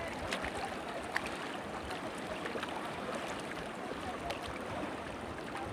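Steady rush of shallow river water around an inflatable raft, with a few small splashes.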